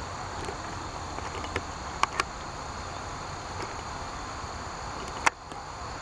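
Steady meadow background with faint high insect trilling, broken by a few sharp clicks: a pair about two seconds in and a louder one near the end.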